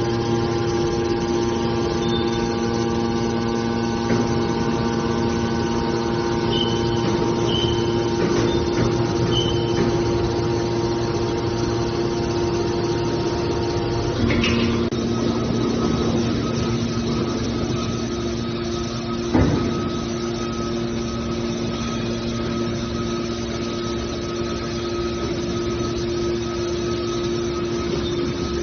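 Metal baler running with a steady mechanical hum. Its tone pattern shifts about halfway through, and there is a single clank a few seconds later.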